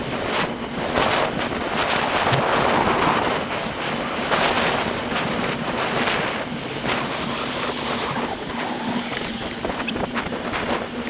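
Wind buffeting the microphone of an SJ4000 action camera mounted on a moving bicycle's handlebar, as a steady rushing noise with scattered sharp clicks and rattles from the bike and mount over the road. The audio is sped up fourfold with the footage.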